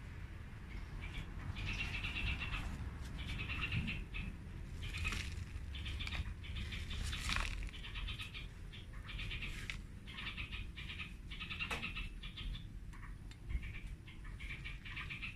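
Short, high chirping animal calls repeating about once a second over a low rumble, with a few sharp rustles and clicks of soil and a plastic pot being handled.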